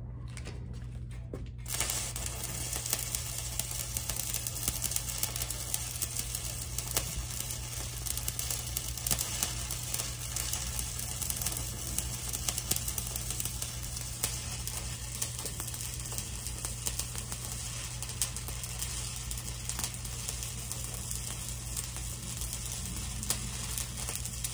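Stick-welding arc on a 7018 electrode: a few brief strikes, then about two seconds in the arc catches and runs with a steady, dense crackling sizzle over a constant low hum as a vertical bead is laid, tying back into the previous stop.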